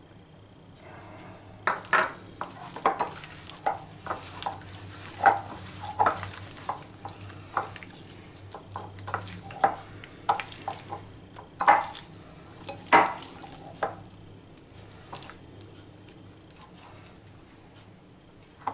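Chicken pieces being mixed by hand with corn flour and a wet marinade in a glass bowl: squelching strokes and irregular knocks against the glass, busiest from about two seconds in until about fourteen seconds, then fainter.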